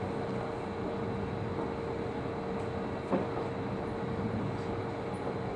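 Seibu 3000 series electric train standing at the platform, its onboard equipment humming steadily with one constant tone. A single sharp click about three seconds in.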